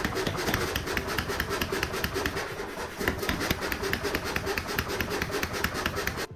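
Power hammer running, striking hot steel in a rapid, even rhythm of about ten blows a second over a steady machine hum; it cuts off abruptly near the end.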